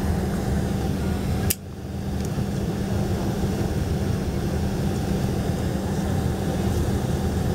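Steady cabin hum inside a Boeing 767-432ER airliner during pushback, the mix of air conditioning and aircraft machinery. A sharp click about a second and a half in, after which the hum drops away and climbs back within about a second.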